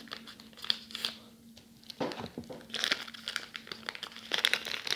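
Scissors snipping into a soap's wrapper, then the wrapper crinkling and tearing as it is pulled open by hand. Scattered ticks come first, and denser rustling follows about three seconds in and again near the end.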